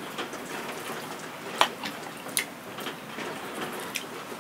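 Steady hiss of rain, with a few sharp ticks, about one and a half, two and a half and four seconds in.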